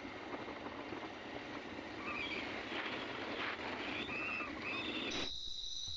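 Steady rushing road and wind noise from a moving vehicle. Near the end it cuts to a steady, high cricket trill.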